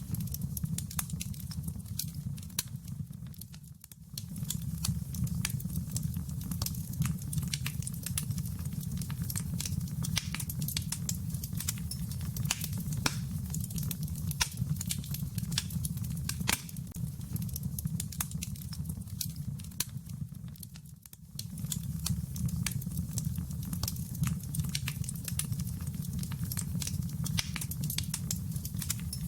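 Wood fire in a fireplace crackling: irregular sharp pops and snaps over a steady low rumble of the flames. The sound dips briefly twice, about four seconds in and again about twenty-one seconds in.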